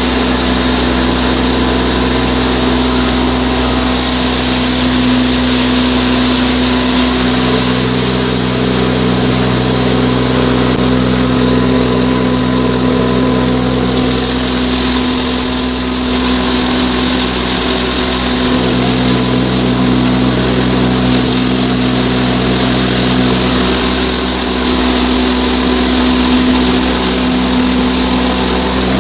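Posho mill running steadily while grinding maize into flour, a loud, even machine hum holding one pitch.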